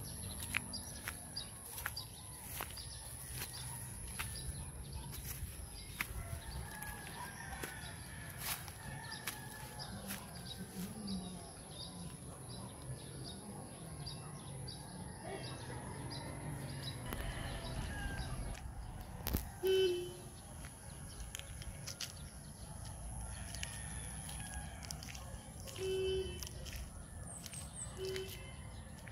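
Rural outdoor ambience with a few short animal calls, the loudest about twenty seconds in and two more near the end, over scattered faint clicks.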